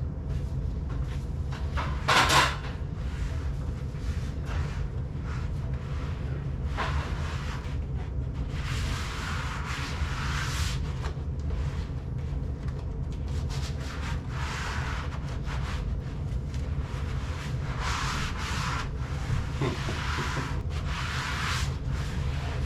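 Hands rubbing and pressing a Mercedes R129 hood insulation pad against the underside of the hood as its sides are tucked in: several rubbing swishes, with a sharper knock about two seconds in.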